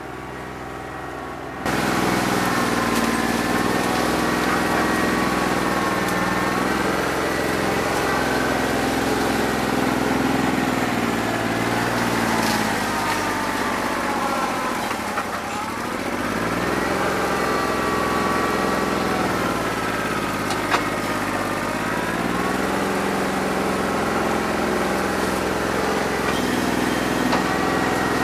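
New Holland 1320 compact tractor's three-cylinder diesel running under load. It jumps louder about two seconds in, its pitch sags and recovers about halfway through, and it sags again at the end. The engine is running rough on a bad injector, firing on only about two and a half cylinders.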